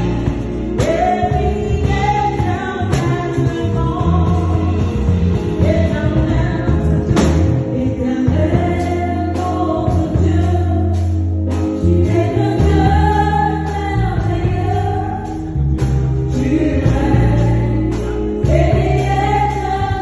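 Gospel worship song sung over a backing band with bass and drums, a choir-like group of voices carrying the melody in long held phrases.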